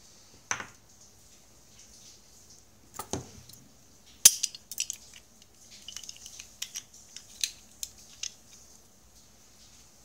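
Small side cutters snipping a polyurethane drive belt, two sharp snips about half a second and three seconds in. A loud sharp click about four seconds in is followed by a run of light clicks and clinks as the cutters and the small motor assembly are handled on a desk.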